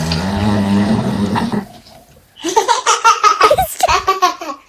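A man snoring with water in his mouth: a gurgling, bubbling snore lasting about a second and a half. After a short pause, laughter follows.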